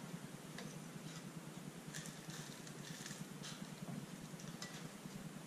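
Faint rustles and light clicks of a thin plastic ice candy bag being opened and a stainless steel funnel being fitted into it, a few times, over a steady low hum.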